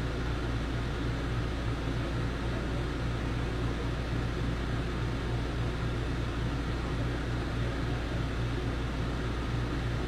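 12-volt van air conditioner running in eco mode at 26°C: a steady low hum of the compressor and fan with an even airy hiss.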